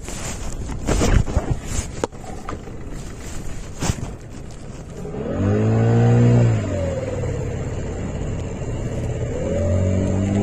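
Small boat slapping and knocking on choppy waves in the wind, then about halfway through an outboard motor revs up, eases off, and revs up again near the end.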